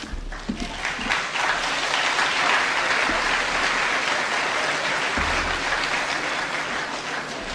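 Large audience applauding, the clapping building about a second in and dying away near the end.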